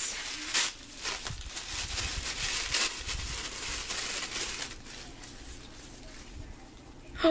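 Packaging being unwrapped by hand: irregular crinkling and tearing rustles, fading to softer handling near the end.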